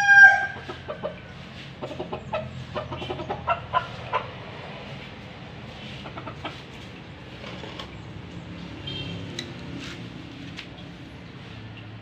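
The end of a rooster's crow right at the start, then chickens clucking in short scattered notes, busiest in the first four seconds, over a low steady hum.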